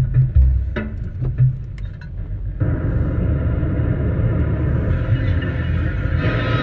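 Music with a beat for the first two or three seconds, then an abrupt switch to the steady low rumble and road noise of a car driving, heard from inside the cabin; a brighter rushing hiss joins near the end.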